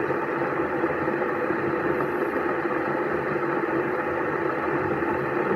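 A steady mechanical hum at a constant pitch.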